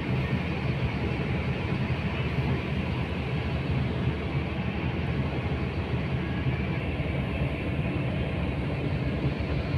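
Steady running hum in the cabin of a parked Mercedes-Benz OH 1526 NG coach, its engine idling and its air conditioning running.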